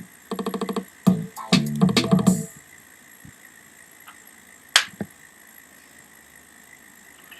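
Electronic music with a beat stops about two and a half seconds in. It gives way to quiet room tone with a single sharp click near the middle.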